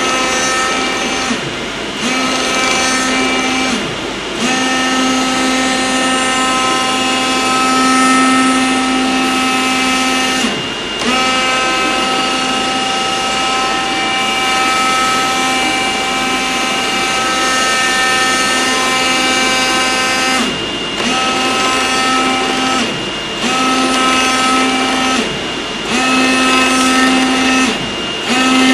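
Oscillating-knife CNC cutter cutting gasket sheet: the knife head gives a steady buzzing tone over a constant rushing hiss. The buzz breaks off for a moment several times as the tool pauses or changes direction, then resumes.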